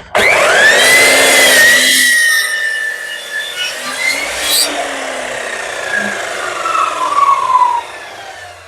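Electric chop saw starting with a rising whine and cutting through a taped bundle of pine slats in one pass; the loudest part is the first two and a half seconds. The blade then winds down with a slowly falling whine that fades out near the end.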